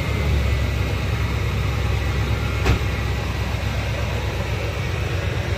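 A steady low rumble with hiss, and one short sharp click about two and a half seconds in.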